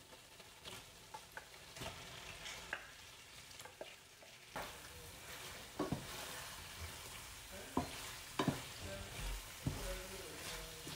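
Cooked penne tipped into a frying pan of hot sauce and stirred with a wooden spatula: the sauce sizzles while the spatula scrapes and knocks against the pan. The sizzling grows louder about four and a half seconds in, once the stirring starts.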